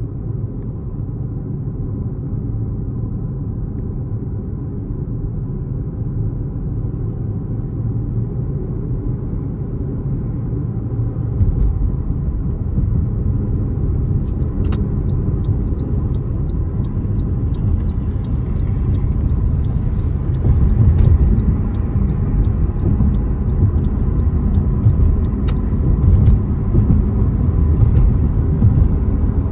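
Steady low rumble of a moving car's road and engine noise, growing louder about twelve seconds in.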